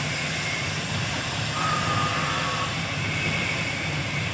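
Steady low rumble of the moored passenger ship Bukit Raya's engines running as it stands ready to depart, with two faint brief higher tones sounding over it partway through.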